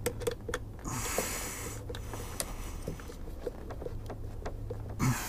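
Faint, irregular small clicks and rubbing as hands work the cables and terminal hardware on a truck-bed battery, with a short scraping rustle about a second in.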